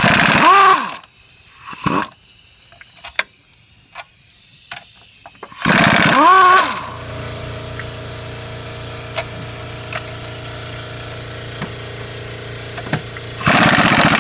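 Power driver spinning in several bursts, each rising then falling in pitch as the trigger is squeezed and let go, while it removes the bolts from the minivan's engine mount bracket. A steady low hum runs through the second half.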